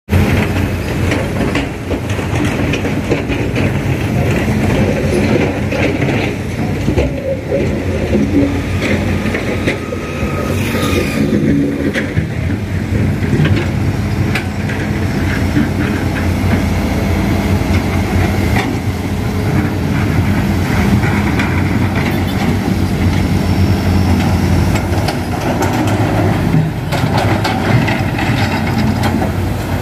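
Heavy diesel machinery running steadily: a low engine drone with a rattling, clattering texture.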